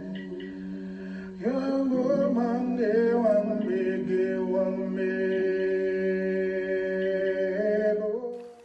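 Background music: a steady held drone, with a voice singing over it from about a second and a half in; the music stops just before the end.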